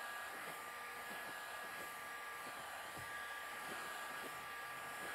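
Handheld electric heat gun running steadily, its fan blowing air with a constant whine of two high tones over the rush.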